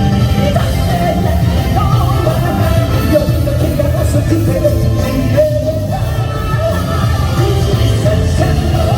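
Loud amplified J-rock song with a male lead singer over heavy bass and drums, as heard live through a concert PA.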